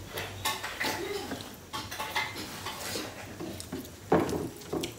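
Eating sounds: fingers mixing and scooping rice on metal plates, with scattered light clinks and scrapes against the metal, and chewing. A louder cluster of clicks comes about four seconds in.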